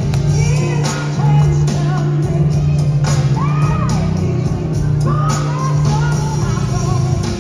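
Recorded song with singing and a steady beat, played as accompaniment for a stage dance routine.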